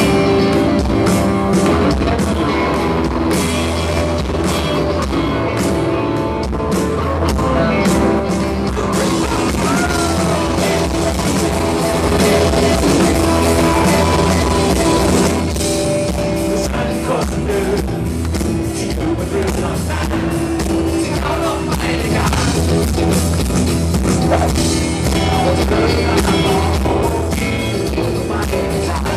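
Live rock band playing a song: guitars, keyboards and drums with a singing voice, heard loud and full from within the audience.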